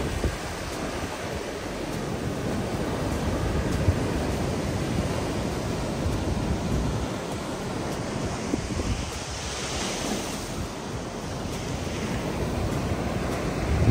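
Ocean surf breaking and washing up a sandy beach, a steady rush of waves with wind buffeting the microphone. One wash of surf grows louder and hissier about two-thirds of the way through.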